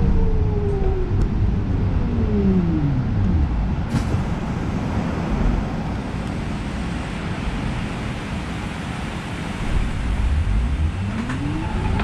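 City bus drivetrain whine heard from inside the cabin, falling in pitch over the first few seconds as the bus slows to a stop, then rising near the end as it pulls away. Under it is a steady rush of rain and road noise, with a single sharp click about four seconds in.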